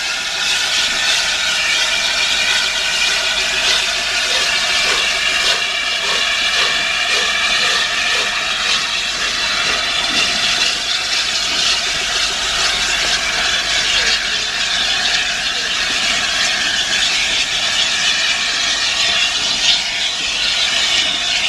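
Gresley A4 steam locomotive moving slowly with its train, with a steady loud hiss of steam.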